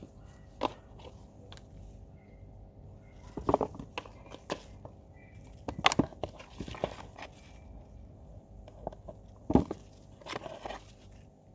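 Handling noise: scattered knocks and crunches at uneven intervals, the loudest about six and nine and a half seconds in, with a few faint short high chirps between them.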